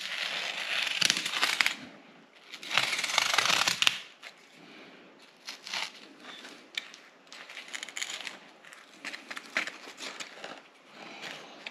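Utility knife slicing through carpet felt on a speaker box panel: two long scratchy cuts in the first four seconds, then quieter scraping and rustling as the felt is trimmed and pressed down.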